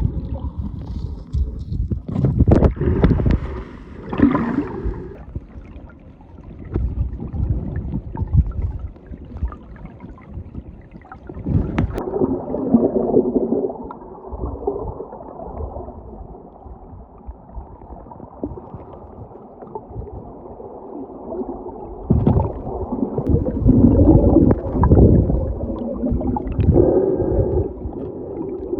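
Muffled sloshing and gurgling of river water, dull as if heard underwater, with irregular swells and a sharp knock about twelve seconds in.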